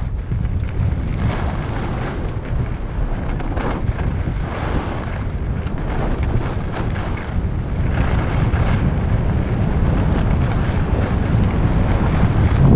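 Wind buffeting the microphone of a camera carried by a skier going downhill, with the rasp of ski edges scraping over packed snow through the turns. The wind gets louder toward the end as the skier picks up speed.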